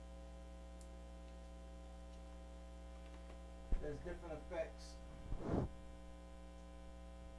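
Steady electrical mains hum with a buzz of many fixed tones. About four seconds in, a click is followed by about a second of wavering pitched sound, then a short noisy burst.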